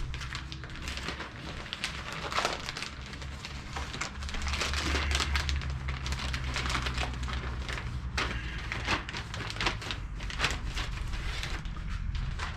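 Rustling, crinkling and small clicks of hands going through a gasket kit's packaged parts, searching for seals, over a steady low hum.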